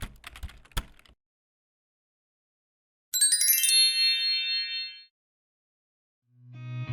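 A short clatter of typing-like clicks, then a sparkling chime sound effect: a quick cascade of bell tones settling on one held high ring that fades after about two seconds. Guitar music starts fading in near the end.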